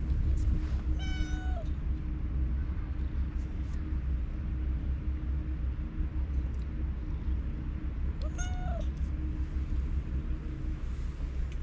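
Stray cat meowing twice, two short calls about seven seconds apart, each dropping in pitch at the end, over a steady low background rumble.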